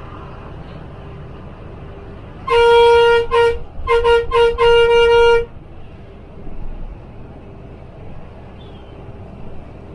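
Volvo bus horn honked in a quick string of about five blasts, the first and last held longer, over steady road and engine noise from the moving bus.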